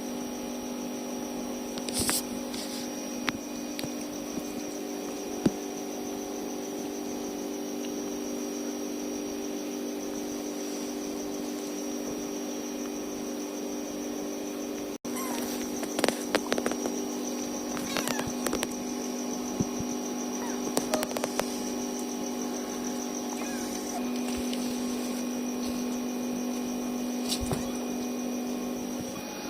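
A steady hum with scattered soft clicks and knocks, more frequent in the second half.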